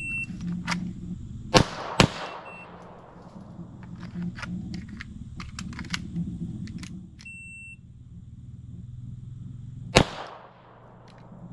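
Shot-timer beep, then two pistol shots about half a second apart, about a second and a half later. A second timer beep comes about seven seconds in, followed by a single shot near the end, with fainter clicks in between.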